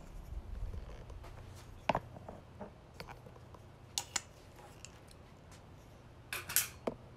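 Scattered quiet clicks and knocks from handling a Work Sharp Ken Onion knife sharpener while its angle guide is set, with a short louder rattle near the end.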